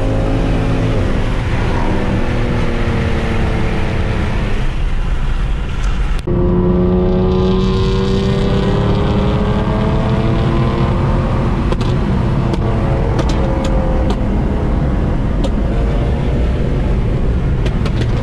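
Car engine pulling under acceleration on the highway, heard from inside a moving car, its pitch rising steadily over several seconds. An abrupt cut comes about six seconds in, after the engine note has been easing off.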